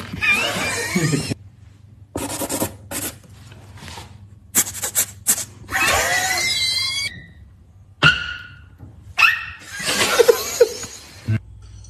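Beatboxers making sound effects with their mouths and voices: a string of separate hissing and scraping noises, clicks and sounds that slide up in pitch, with short gaps between them.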